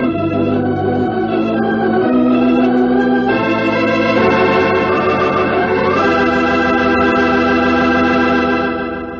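Dramatic organ music closing the radio episode: held chords that shift every second or so, with a longer sustained chord from about 6 s, fading out near the end.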